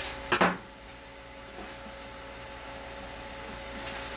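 Handling noise on a workbench: two or three sharp clicks in the first half second, then quiet room tone with a faint steady hum.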